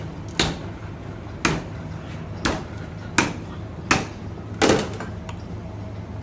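Heavy cleaver chopping through rolled garfish onto a plastic cutting board: six sharp chops about a second apart, the last and loudest near the five-second mark, over a steady low kitchen hum.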